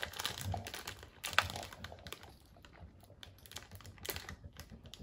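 Light, irregular clicks and rustles of a plastic candy-kit package being handled, with one sharper click about one and a half seconds in.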